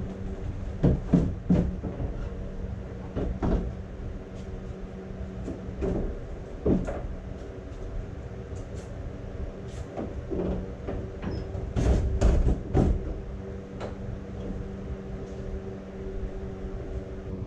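Jeep Wrangler TJ hood being lowered, closed and pressed down onto newly fitted hood bumpers: a series of scattered knocks and thumps, the loudest group about twelve seconds in. A steady low hum runs underneath.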